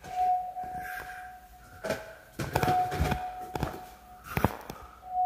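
A handful of footsteps and camera-handling knocks over a steady high tone that fades out and back in several times.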